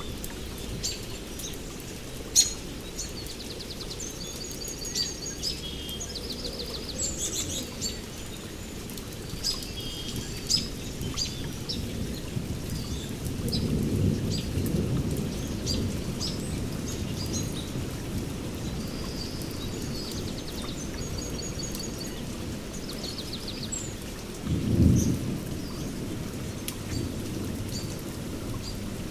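Steady rain in a rainforest under many birds chirping and trilling. Thunder rumbles twice: a long roll about halfway through and a louder, sharper clap a few seconds before the end.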